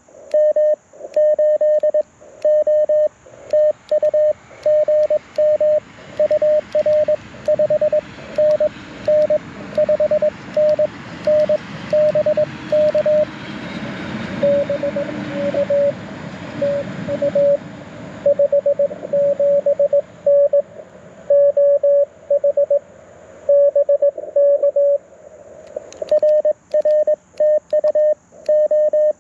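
Morse code from a Mountain Topper MTR4B V2 QRP transceiver: a single mid-pitched tone keyed on and off in dots and dashes, with a few short pauses between groups. A hiss of band noise swells under the tones through the middle and fades again.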